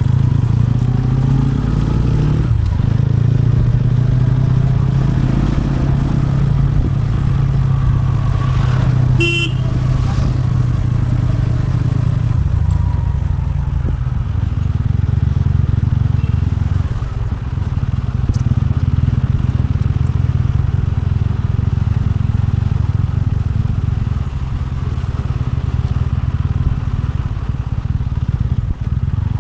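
TVS Ronin's single-cylinder engine running while the motorcycle is ridden, its revs rising and falling. A brief sharp sound about nine seconds in.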